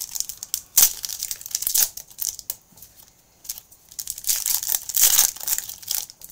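Plastic wrapper of a 2022 Panini Prestige NFL trading card pack being torn open and crinkled, in irregular bursts of crackling with a short lull in the middle.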